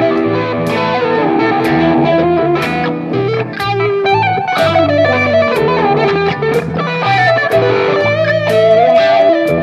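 Instrumental rock music: an electric guitar playing a lead melody over bass notes and drums, with a steady beat struck about once a second.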